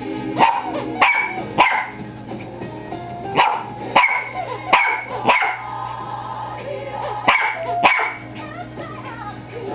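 A miniature pinscher barking shrilly, with about nine sharp single barks in clusters of two or three, over background music.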